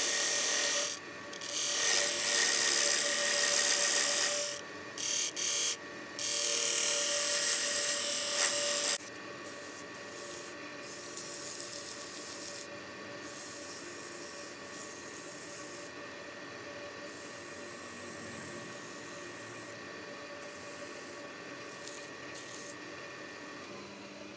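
Wood lathe turning a segmented ring of glued scrap wood: a hand-held turning tool cuts the inside with a loud scraping hiss, broken by short pauses about a second in and about five seconds in. After about nine seconds the cutting stops and the lathe runs on more quietly, with a steady motor hum and light rubbing against the spinning wood; the hum drops slightly in pitch near the end.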